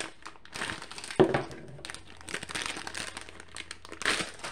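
Clear plastic packaging bag crinkling as it is handled and opened, with louder rustles about a second in and near the end.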